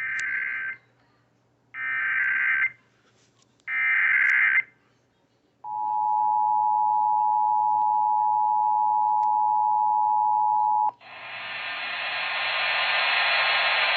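Emergency Alert System broadcast over FM radio. It opens with three short screeching SAME data bursts about two seconds apart. About five and a half seconds in, the two-tone EAS attention signal sounds as a steady, harsh dual tone for about five seconds and cuts off abruptly, followed by a steady hiss.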